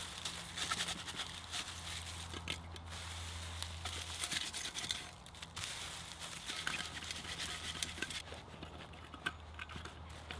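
Camping gear being packed by hand: rustling and crinkling of a fabric pouch, with scattered small knocks and clicks as a metal pot is handled and stowed.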